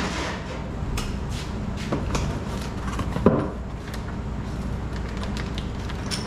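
Scattered knocks and clunks of hand tools and metal faucet parts being handled during a faucet removal, the loudest about three seconds in, over a steady low hum.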